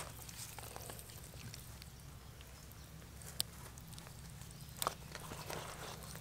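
Hands cleaning raw fish on a banana leaf: faint wet squelching and rustling of fish flesh, with two sharp clicks about three and a half and five seconds in, over a steady low hum.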